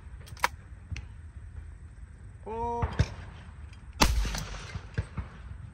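Shotgun shot at a sporting clays target about four seconds in, loud and sharp with a ringing tail.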